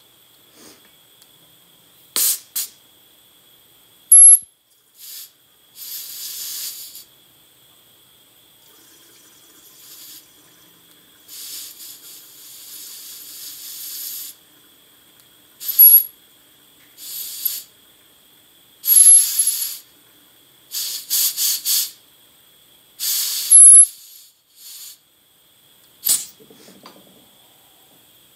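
Compressed shop air hissing from a tire-inflator chuck pressed onto a WD-40 aerosol can's valve, forcing air back into a can that has lost its pressure. It comes in many short hisses and a few longer ones lasting a second or more, the loudest with a sharp high whistle.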